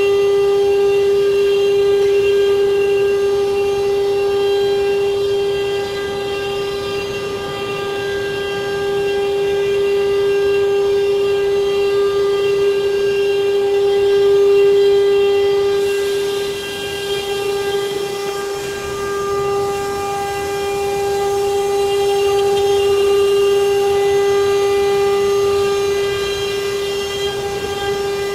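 CNC wood router spindle running with a steady high whine, its loudness swelling and dipping slightly as it cuts.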